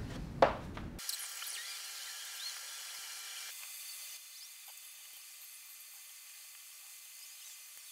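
Dry-erase markers rubbing and squeaking on a whiteboard in rapid scribbling strokes, thin and hissy with no low end. A single sharp click comes about half a second in.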